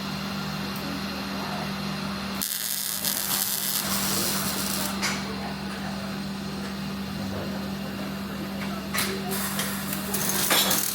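Steady hum of workshop machinery in a welding shop, with a few short clicks.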